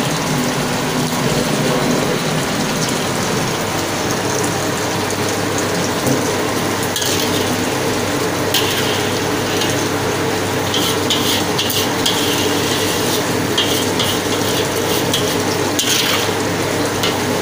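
A spatula scrapes and stirs chicken in sauce in a wok heating on the stove, over a steady sizzling hiss. The scraping against the wok comes in short spells from about seven seconds in.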